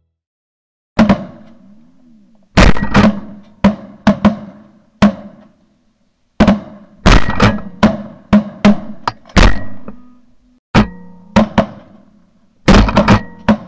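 A volley of shotgun shots from several guns at once, about twenty blasts in quick clusters with short gaps between, each dying away fast in the open field.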